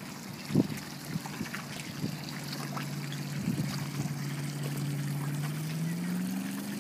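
Water lapping against a boat hull, with a couple of sharp knocks, the loudest about half a second in. A low motor hum sets in about two seconds in and rises slightly in pitch near the end.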